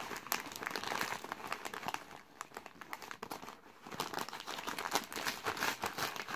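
Crinkling and rustling of glossy striped gift wrap as hands unwrap a parcel, in dense irregular crackles that ease off for a moment in the middle and pick up again near the end.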